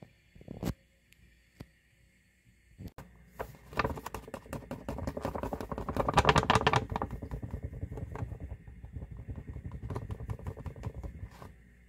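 A few light knocks, then a flour bag rustling and crackling in rapid bursts as it is shaken to dust flour over bread dough in a baking pan, loudest about midway.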